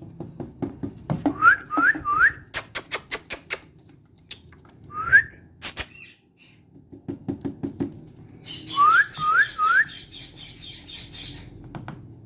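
Green Indian ringneck parakeet whistling short rising whistles, three in quick succession, then one, then three more. Between them comes a quick run of sharp clicks, over a low, patchy tapping.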